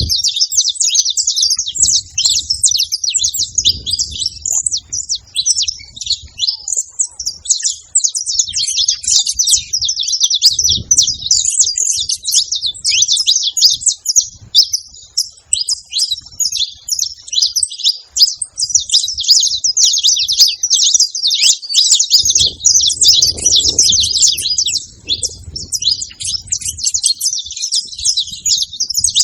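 Saffron finches chirping rapidly and without pause, a dense run of high, quick chirps.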